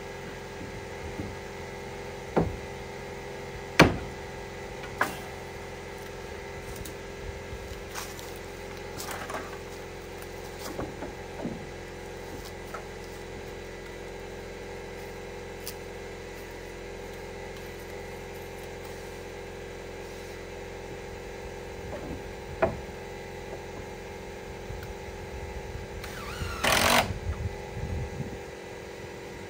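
Scattered sharp knocks and taps of cherry siding boards being handled and nailed up, the loudest few in the first five seconds, over a steady machine hum. Near the end comes a rough, noisy burst lasting about two seconds.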